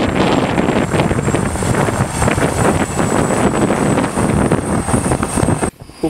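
Wheeled tractor's diesel engine running under load as its front dozer blade pushes through snow drifts. The sound cuts off abruptly just before the end.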